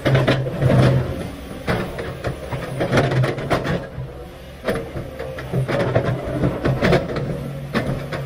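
Komatsu PC500LC excavator's diesel engine running under load while the bucket digs, scraping and clattering against rock and stones with many irregular knocks.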